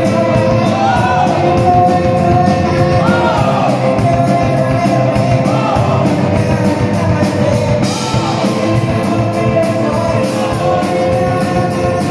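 Live rock band playing: a woman singing into a microphone over electric guitar, electric bass and drums, with cymbals keeping a steady beat.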